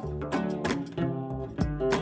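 Background music: plucked strings, guitar-like, playing a quick run of notes over a bass line.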